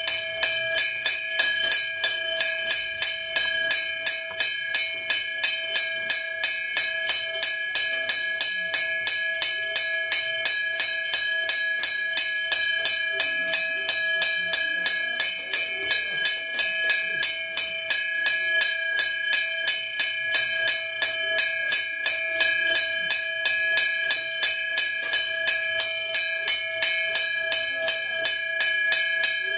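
A temple worship bell rung continuously and evenly, about three strokes a second, each stroke sounding the same bright ringing tone, as rung during a deity's abhisheka bathing ceremony.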